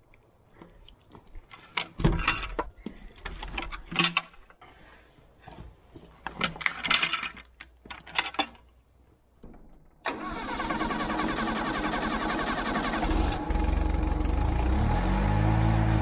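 A cant hook knocking and scraping against a large log as it is levered over: a handful of irregular knocks. About ten seconds in, the sawmill's engine cuts in and runs steadily, then picks up speed a few seconds later.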